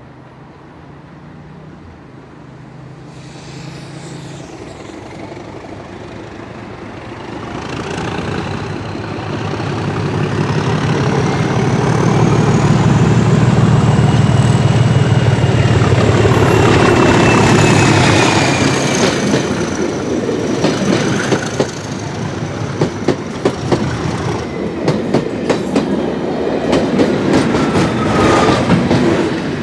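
Class 37 diesel locomotive's English Electric V12 engine running under power as it accelerates a test train out of the station. It is loudest as it passes at about 12 to 18 s, with high squealing from the wheels on the curved track. After that the coaches clatter rhythmically over rail joints, and the rear locomotive comes by close near the end.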